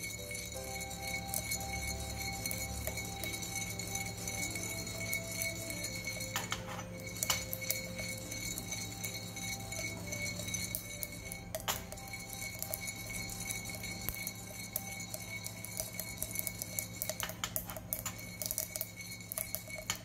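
Coffee beans rattling and clinking inside a ceramic hand roaster as it is swirled over a gas flame, the beans roasted to the burnt stage. Sharp clicks come now and then and grow thick near the end.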